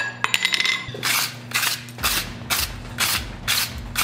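A few quick, light hammer taps on red-hot mild steel on the anvil. Then a wire brush scrubs scale off the glowing steel in rasping strokes, about two a second.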